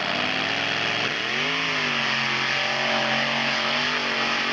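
Mud-racing vehicle's engine at full throttle. The revs climb sharply about a second in and then hold high and steady under a heavy rushing noise.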